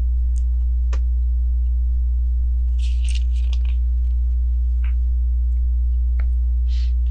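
Steady low electrical hum with a few faint clicks and brief rustles of plastic Lego bricks being handled.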